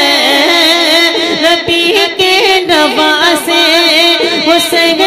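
A man singing a manqabat solo through a microphone, drawing out long ornamented notes that bend and waver in pitch between the lines of the verse.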